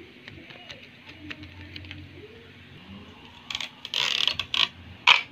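Clear sticky tape being pulled off a roll in a tape dispenser: a rasping rip about three and a half seconds in, then a sharp snap near the end. Before that, only faint ticks of paper being handled.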